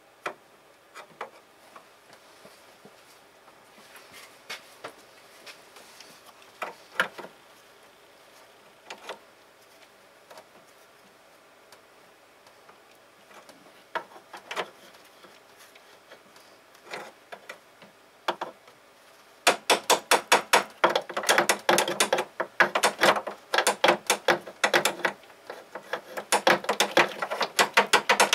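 Hand-tool work: scattered sharp clicks and knocks, then from about two-thirds of the way through a fast, loud run of sharp taps or clicks, several a second.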